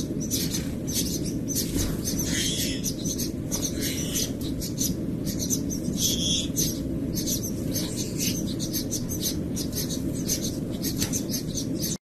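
Gouldian finches giving a rapid, continuous run of short, high chirps over a steady low hum.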